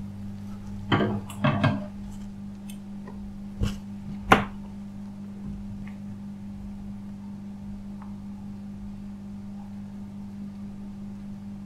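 Steady low electrical hum under a few short knocks and clicks from a phone and tools being handled on a workbench. Two small clusters of knocks come about one and one and a half seconds in, and two single knocks follow near three and a half and four and a half seconds, the last the sharpest.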